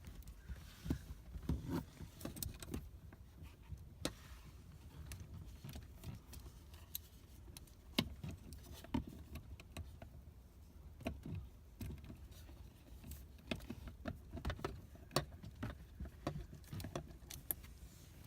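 Scattered light metallic clicks and rattles of a Torx driver being worked on the airbag screws behind a BMW E36 M3 steering wheel, with keys jangling on the ignition key.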